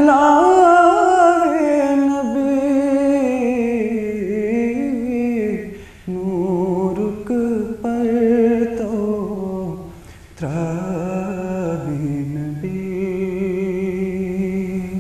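A young man singing a naat, a devotional poem in praise of the Prophet Muhammad, in long held, wavering notes with no instruments. There are short breaks for breath about six and ten seconds in.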